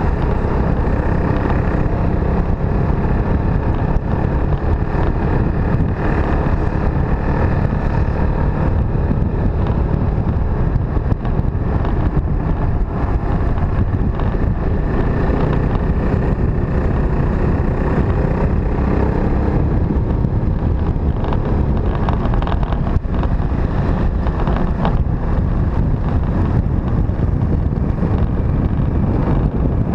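Motorcycle engine running under way, its pitch drifting up and down a little with the throttle, over a heavy, steady wind rumble on the microphone.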